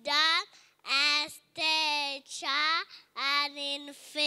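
A young girl reciting a Bible verse in a slow sing-song chant, each syllable drawn out on a held pitch with short breaks between.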